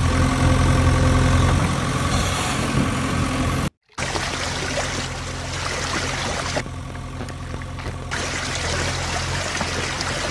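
A steady idling engine hum, with water trickling and pouring. The sound cuts out for a moment about four seconds in, then the hum carries on.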